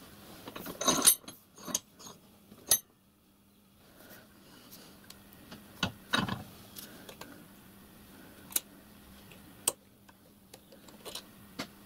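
Irregular small metallic clicks and taps as pliers, a steel wood screw and thin stainless steel wire are handled against a steel bench vise while the wire is wound into a tiny coil spring. A louder clatter comes about a second in and another near the middle.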